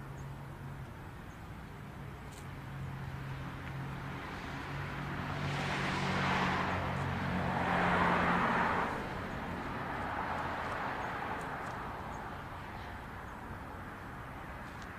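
A road vehicle passing by: tyre and engine noise swelling, loudest about eight seconds in, then fading away.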